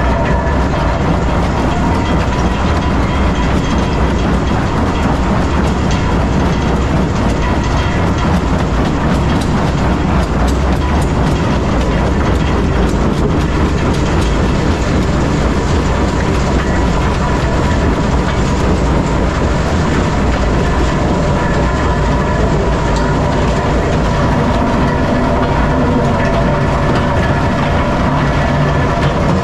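Metso 130 jaw crusher running under load, crushing blasted limestone: a steady heavy rumble of the machine with a constant clatter and knocking of rock breaking and tumbling in the crushing chamber and feeder.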